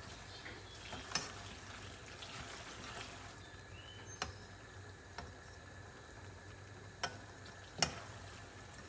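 A spoon stirring macaroni and cheese sauce in a pot, knocking against the pot about five times, the loudest near the end, over a steady low hum.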